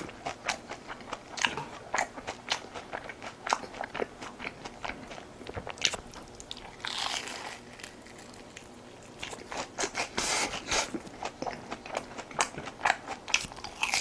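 Close-miked eating: a run of crisp biting and crunching with chewing, and two longer noisy stretches about halfway and three quarters of the way through.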